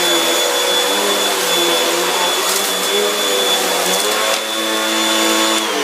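Vacuum cleaner running at full power with a steady high whine and a few brief crackles, then switched off near the end, its motor winding down with a falling whine.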